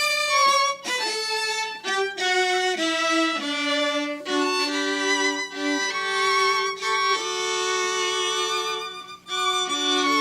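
Small string group of three musicians playing live: a violin melody with vibrato over lower held notes, breaking off briefly about nine seconds in before going on.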